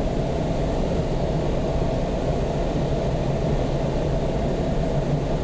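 Steady rush of air streaming around the canopy, heard inside the cockpit of an unpowered Schleicher ASH 25 glider gliding down on its landing approach, with a steady low hum under it.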